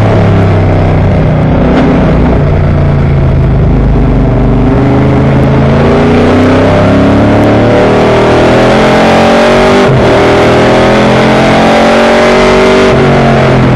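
A vintage race car's engine at full load, heard from inside the cabin. The revs sit low through a corner, then climb steadily from about five seconds in. The pitch drops sharply at a gear change near ten seconds, and the revs climb again after it.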